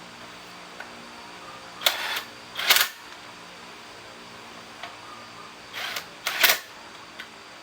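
Four short hissing spray bursts in two pairs, about four seconds apart, over a steady low hum.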